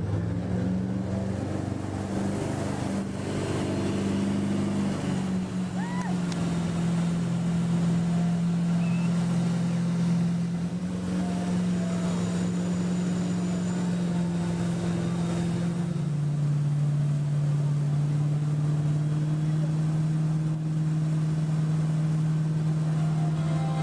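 Motorboat engine running steadily at speed under power, its pitch easing down slightly twice, about a quarter and two-thirds of the way through.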